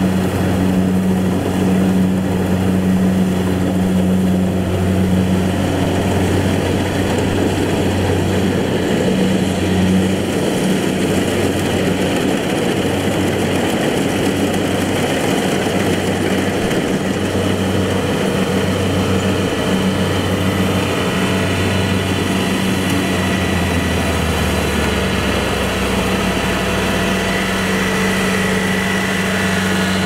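Kubota combine harvester's engine running steadily at working speed, a loud even drone, with a deeper hum coming in for a few seconds near the end.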